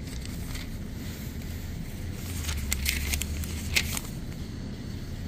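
Plastic grocery packaging crinkling a few times as it is handled, over a low steady rumble.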